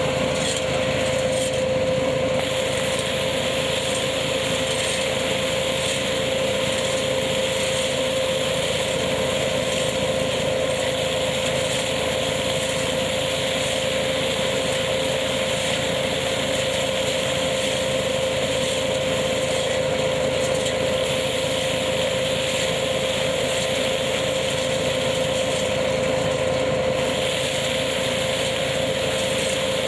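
Tractor-driven KF-501 hazelnut harvesting machine running steadily: a constant mechanical din with a steady whine.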